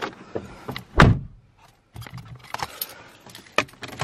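A car door slamming shut with a heavy thud about a second in, heard from inside the car, followed by keys jangling and small clicks and rustles as the driver settles in.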